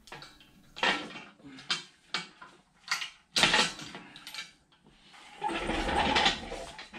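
Engine hoist's steel chain and hook clinking against the Bridgeport mill ram as it is unhooked: a series of sharp metal clanks, then a longer clattering rattle near the end.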